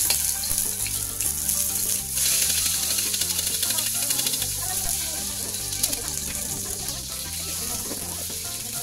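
Snakehead fish (dalag) sizzling as it fries in hot oil in a wok, a steady crackling hiss. Background music with a repeating bass line plays underneath.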